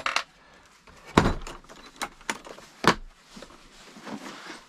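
Four sharp clicks and knocks of a ratchet and socket being fitted and worked on a leisure battery's terminal nut.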